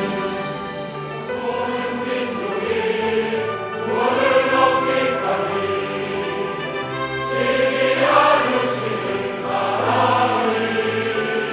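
Large combined church choir singing a sacred anthem, sustained chords that swell louder about four and eight seconds in.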